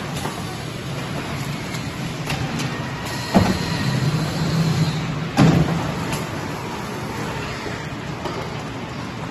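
Steady mechanical running of a speed-chain conveyor assembly line, with two sharp knocks about two seconds apart near the middle.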